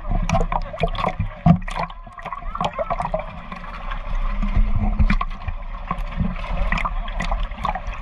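Water sloshing and splashing around a half-submerged camera, with many short sharp splashes and clicks as a crowd of large fish churn at the surface.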